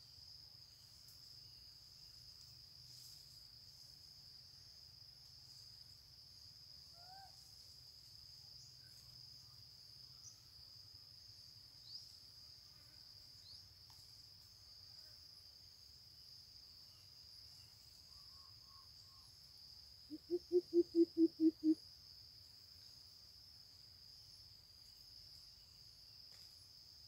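Steady high insect buzz throughout. About twenty seconds in, a greater coucal gives a short run of about nine deep hoots in under two seconds, getting louder over the first few.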